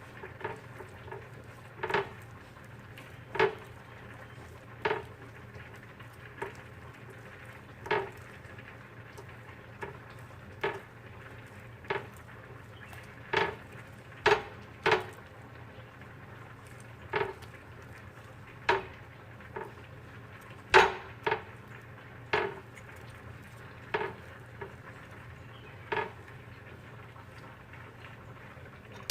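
Kitchen utensils clinking and knocking against dishes, one sharp knock every second or two at an uneven pace, over a faint steady hum.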